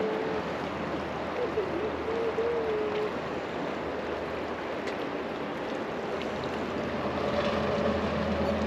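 River current running past the bank: a steady rush of moving water. A faint wavering whine rides on it for the first three seconds, and a low steady hum comes in near the end.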